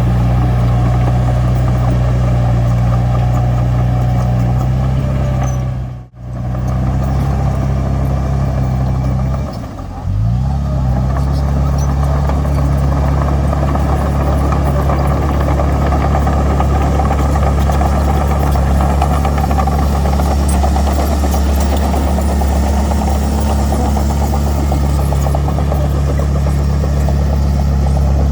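Heavy diesel earthmoving machinery running steadily under work, with a deep, even engine note. The sound cuts out abruptly about six seconds in, dips again near ten seconds, and then carries on at a slightly different pitch.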